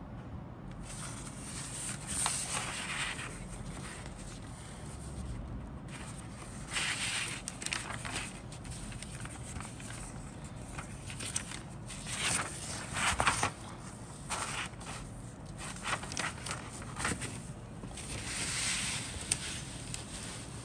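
Paper instruction sheet of a plastic model kit rustling as it is handled and its pages are turned and unfolded, in about four separate bursts of crinkling.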